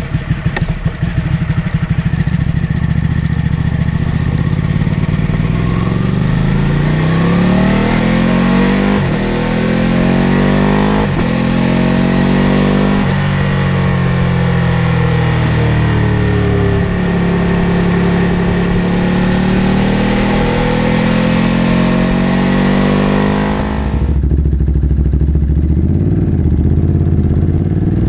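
Ducati L-twin motorcycle engine with a full Termignoni exhaust, running unevenly at first, then revved in several rising and falling throttle blips and held at higher revs. About 24 s in the sound changes abruptly to a deeper, lower rumble.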